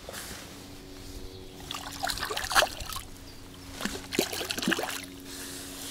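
Water splashing in two bursts, about two and four seconds in, as a fish thrashes at the surface beside the angler's hand.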